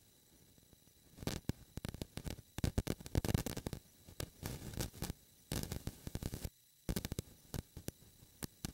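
Irregular bursts of crackling and clicking on the camera's microphone, dense through the middle and thinning out near the end, over a faint hiss.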